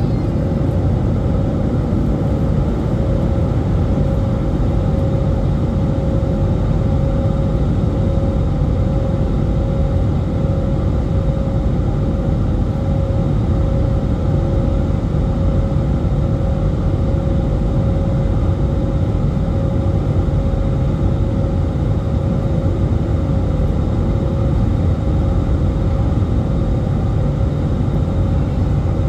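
Steady in-flight cabin noise of an Airbus A320neo heard from a seat over the wing: a low rumble of engine and airflow with a steady hum on top, shortly after takeoff.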